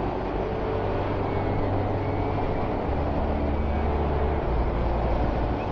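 Onboard sound of a Honda CBR900RR Fireblade's inline-four engine pulling steadily in fourth gear through a bend, under a heavy rush of wind. The low engine note shifts about three seconds in and again a second and a half later as the throttle changes.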